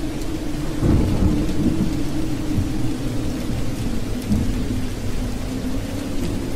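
Steady rain hissing, with a rumble of thunder about a second in, over a low steady drone.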